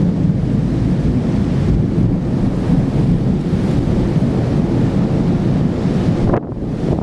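Torrential cloudburst downpour: heavy rain pouring steadily, with wind buffeting the microphone. The sound dips briefly about six and a half seconds in.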